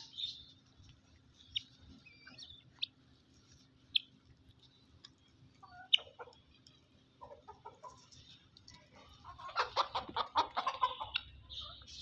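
Helmeted guineafowl calling: a rapid run of harsh clucks near the end, after single short high chirps.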